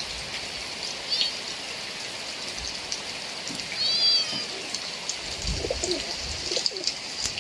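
A bird gives two short, high calls, one about a second in and one about four seconds in, over the steady hiss of rain.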